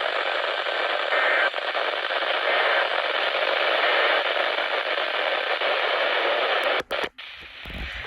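Radio static: a steady hiss from a radio receiver between broadcasts, dropping out abruptly twice about seven seconds in and then going much quieter.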